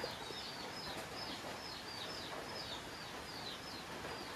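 A bird calling a fast series of short, falling chirps, about three a second, over a faint steady hiss.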